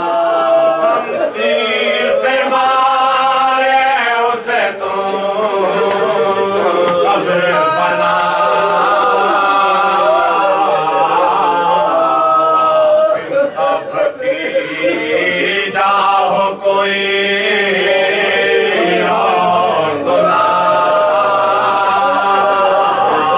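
Men's voices chanting an Urdu marsia, a Shia elegy for Imam Husain, in long held and gliding melodic lines with short breaks for breath. There is no instrumental accompaniment.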